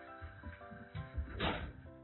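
Background music, with a few soft thumps from a kitten pouncing and landing on carpet around an electric cat toy, the loudest with a brief rustle about a second and a half in.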